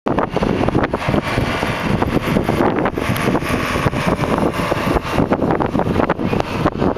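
Loud, steady jet noise from a C-17 Globemaster III's four turbofan engines as the transport rolls out on the runway after landing.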